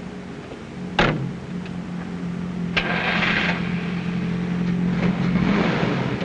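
A car engine running steadily, with a sharp knock about a second in and a short burst of hiss a few seconds later.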